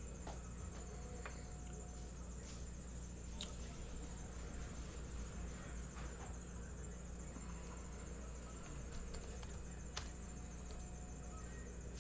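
Quiet room tone: a steady low electrical hum under a steady high-pitched whine, with a few faint clicks.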